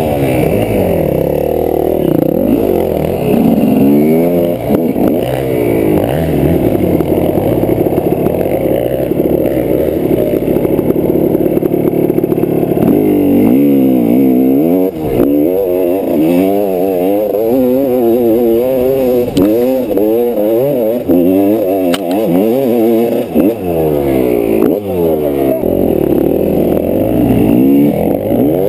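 GasGas 300 EC's single-cylinder two-stroke engine, heard onboard, running hard under throttle. Its revs hold steady for several seconds early on, then rise and fall again and again with the throttle from about halfway.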